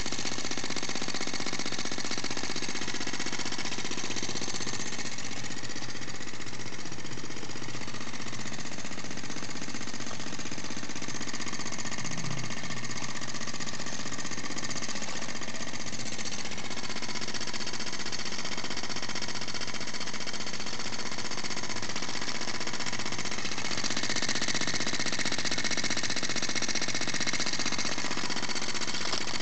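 Small homemade charcoal-fired steam engine running fast, its piston and flywheel making a rapid, steady clatter.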